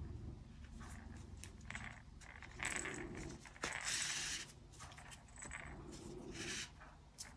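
Yarn and a sewing needle being pulled through a stuffed crocheted toy while embroidering: a few short, soft rustling, scraping strokes, with one small click in the middle.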